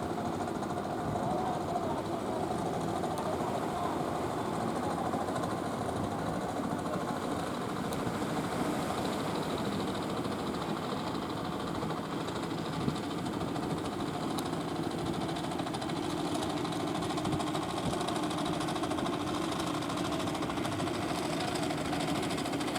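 Fishing boat engine running steadily, a continuous low mechanical drone.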